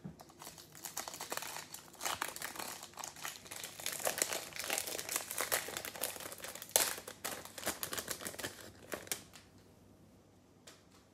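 The foil wrapper of a Topps Chrome trading card pack being torn open and crinkled by hand, a dense run of crackles that dies away about nine seconds in, with one last click near the end.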